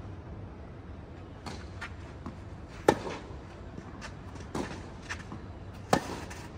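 Tennis ball struck back and forth with rackets, sharp pops roughly every one and a half seconds, the two loudest hits about three and six seconds in.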